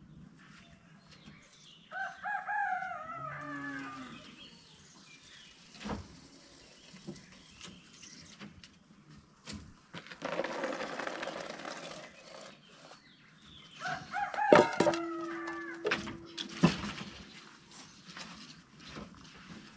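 A rooster crows about two seconds in and again around fifteen seconds. In between, cooked beans pour from a metal pot into a plastic basin with a brief rushing patter, and there are a few sharp knocks of the pot.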